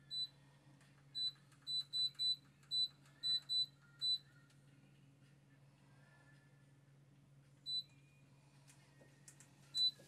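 Short, identical high electronic beeps from a vibration plate's control panel as its buttons are pressed: nine in quick, uneven succession in the first four seconds, then one near eight seconds and one just before ten.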